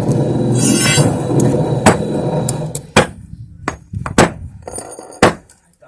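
Saw-cut concrete being broken out: a dense, rattling run of rapid impacts for the first two to three seconds, then five or six separate sharp knocks of hard tools and concrete pieces striking.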